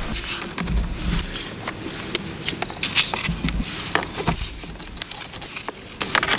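Stones knocking and scraping against each other as they are fitted by hand into a stone wall: irregular clicks and knocks, with louder knocks about three seconds in, at about four seconds and near the end.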